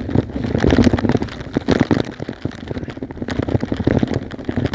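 Bicycle rattling over a rough dirt track: a dense run of small knocks and crackles over a low rumble.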